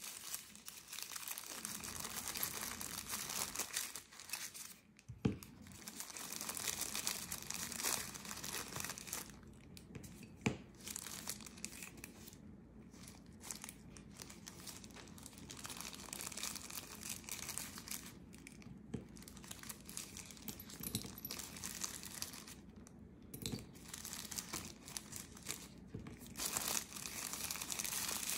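Thin white wrapping sheets crinkling, rustling and tearing as they are crumpled and peeled off by hand, in uneven stop-start handfuls, with a few light clicks along the way.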